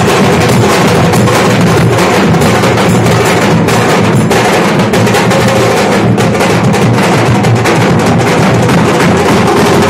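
Nashik dhol band: several large barrel drums beaten hard with sticks in a loud, fast, unbroken rhythm.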